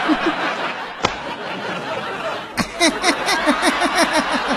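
A man laughing hard in rapid, repeated 'ha-ha' bursts, each falling in pitch, about five a second. The laughter eases off about a second in and breaks out again more strongly a little past halfway.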